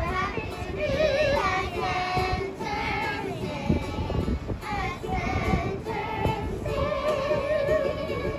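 A group of young children singing a song together to music.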